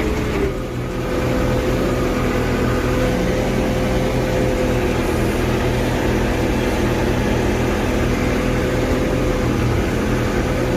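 Case 770 backhoe loader's diesel engine running steadily as the machine is driven. A steady whine rides over the engine note and jumps up in pitch about half a second in.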